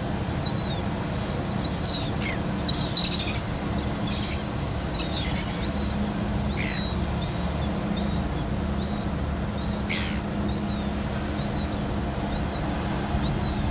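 Steady low drone of the tug's engines pushing the ship. Over it, gulls call: a string of short chirps about one or two a second, and a few louder descending cries.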